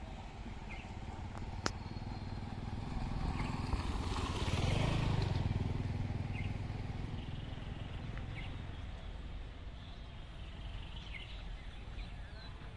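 A vehicle's low engine rumble swells and fades as it passes, loudest about five seconds in, with birds chirping.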